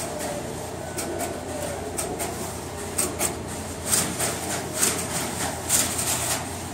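Relays of an electromechanical crossbar telephone switch clicking and clattering irregularly as the switch works, over a steady low hum. The clicks come thicker and louder from about three seconds in.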